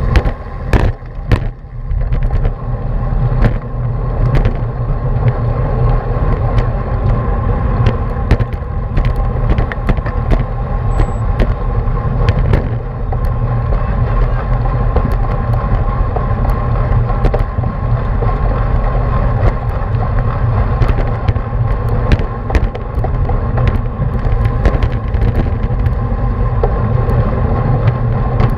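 Heavy wind rush and road rumble on the microphone of a bike-mounted action camera riding in a racing pack, with sharp knocks from bumps in the road throughout.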